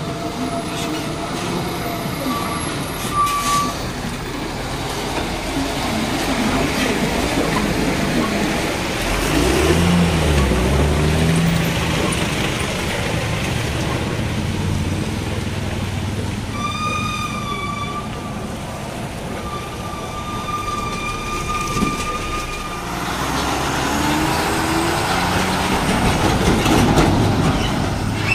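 Engines and road noise of slow traffic: trucks and motorcycles running, with a heavier engine rumble for a few seconds before the middle. A vehicle horn gives a short toot near the start, then two longer blasts a little past the middle.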